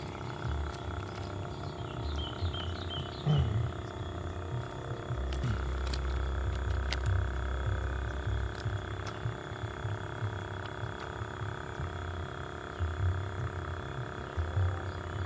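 Uneven low rumble of wind buffeting the microphone outdoors, with a short run of faint high chirps about two seconds in.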